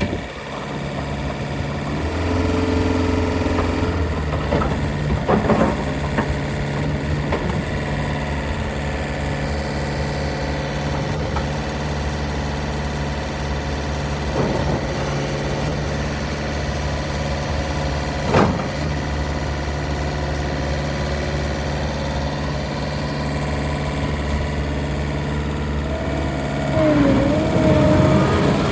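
John Deere 333E skid steer loader's diesel engine running steadily at idle, with a few sharp knocks now and then. Near the end it gets louder and a wavering whine comes in.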